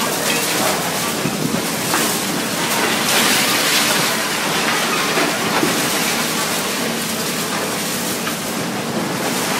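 Demolition of a concrete building: a high-reach hydraulic excavator's engine running while concrete and rubble crumble and pour down in a continuous rushing rumble, heaviest about three to four seconds in.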